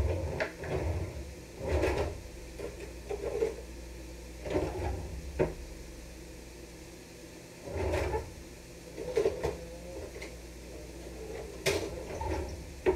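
Wooden kitchen drawer pulled open and pushed shut, with utensils clattering inside as they are rummaged through: a string of separate knocks and rattles, the sharpest knock near the end.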